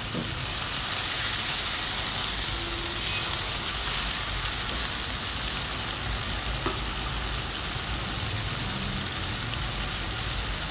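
Onion and spice paste sizzling steadily in hot oil in a nonstick wok, just after a little water has been added, while a spatula stirs it.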